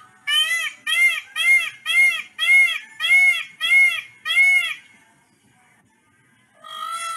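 Indian peafowl (peacock) calling: a rapid run of eight short, ringing honks, each rising and falling in pitch, about two a second, then a pause, and a longer drawn-out call begins near the end.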